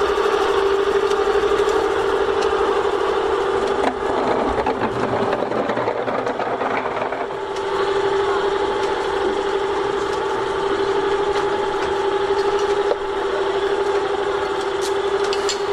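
Hoist motor running with a steady whine as two stacked line-array speaker cabinets are lifted, with light clicks and rattles from the rigging.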